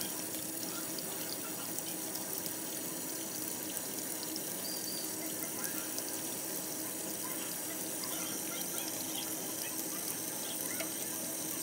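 Kitchen tap running steadily into a stainless steel sink, with a few faint clicks.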